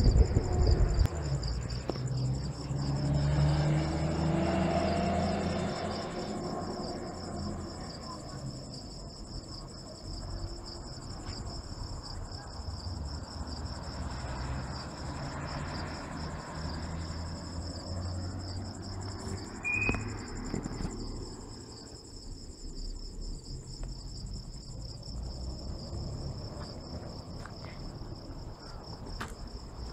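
Crickets chirping in a continuous, steady high trill at two pitches over a low rumble. The rumble swells with a rising tone in the first several seconds. A single short high chirp comes about twenty seconds in.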